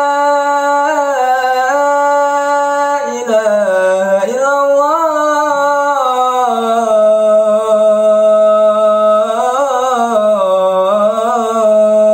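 A young man's unaccompanied voice singing the adhan, the Islamic call to prayer: one long drawn-out phrase of held notes that step down in pitch, with ornamented runs about three and about ten seconds in.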